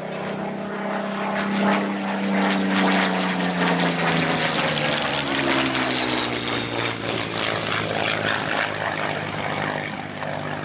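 Supermarine Spitfire Mk IX's Rolls-Royce Merlin V12 engine running at power as the fighter flies past, loudest a few seconds in, its note then dropping in pitch as it passes and moves away.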